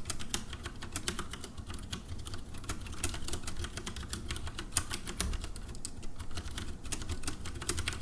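Typing on a Leopold tenkeyless mechanical keyboard with tactile Cherry MX Brown switches, the keys pressed as softly as possible: a rapid, continuous stream of key clicks.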